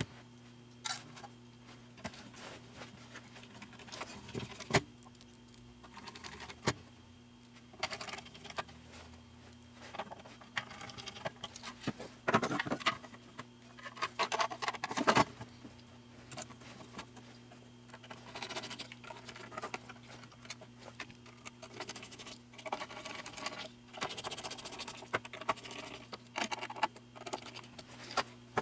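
Scattered small clicks, taps and scrapes of a graphics card being put back together by hand, its heatsink and small parts handled and fitted, busiest about halfway through, over a faint steady hum.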